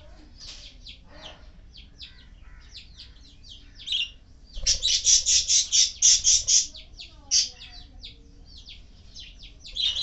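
Pet parrots, budgerigars and a rose-ringed parakeet, calling: short high chirps and chatter throughout. In the middle comes a loud run of about a dozen rapid shrill calls, roughly five a second, lasting about two seconds.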